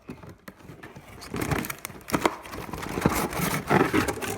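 Packaging being handled as a toy is unpacked: crinkling and rustling with small knocks and clicks, getting busier after about a second.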